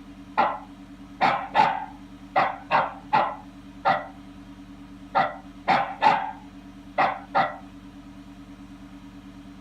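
A dog barking in short, sharp barks, mostly in twos and threes, about a dozen in all, that stop after about seven and a half seconds. A steady low hum runs underneath.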